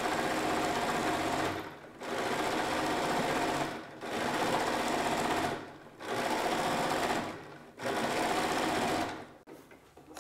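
Bernina sewing machine stitching a line of machine quilting through the layers, running in five stretches of about two seconds with short pauses between as the fabric is guided, then stopping shortly before the end.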